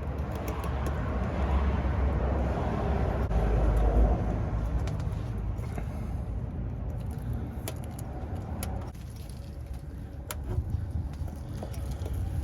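A motor vehicle passing: a low rumble swells to a peak about four seconds in and then fades. A few sharp clicks follow in the second half.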